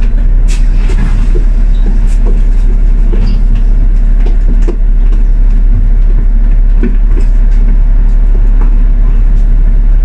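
Loud, steady low rumble of city road traffic with idling red double-decker buses, broken by a few light clicks.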